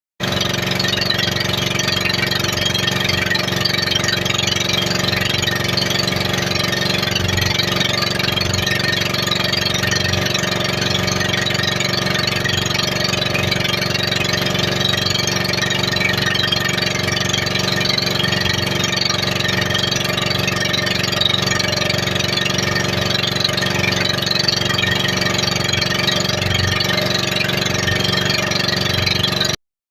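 Motorboat engine running at a steady idle-to-cruise pace, an even drone with no revving. It starts abruptly just after the start and cuts off suddenly near the end.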